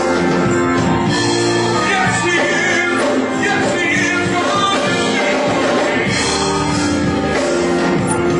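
Church worship music: a band playing with singing.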